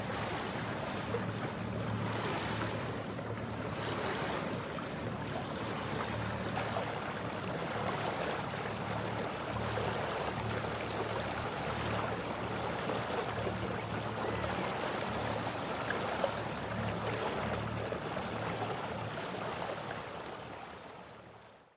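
Water rushing and splashing along a sailboat's hull as it moves under way, with a low hum underneath; it fades out near the end.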